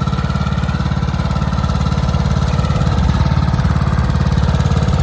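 Riding lawnmower engine running steadily, with a rapid, even low-pitched putter that swells slightly about three seconds in.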